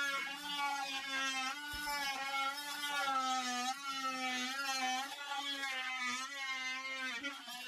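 Cordless oscillating multi-tool running steadily as its blade cuts into the wooden base of a kitchen cabinet: a buzzing tone whose pitch wavers slightly with the load.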